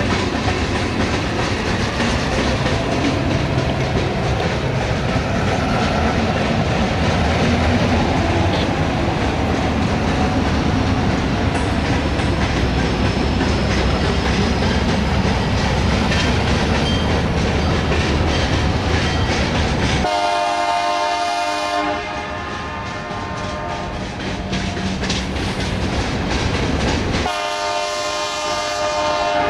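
Freight cars of a BNSF local train rolling past: steady wheel rumble and rail clatter. About twenty seconds in a locomotive's air horn sounds for about two seconds, and it sounds again near the end.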